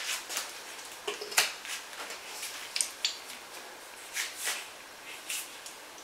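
Faint, scattered clicks and light taps, about eight of them spread over a few seconds, like small objects being handled.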